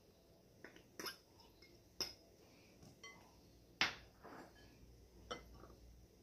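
Glass and cutlery clinking: a small glass bowl knocking against the rim of a large glass mixing bowl, then a metal fork knocking against the glass while stirring a dry flour mix. About half a dozen sharp clinks, the loudest about four seconds in.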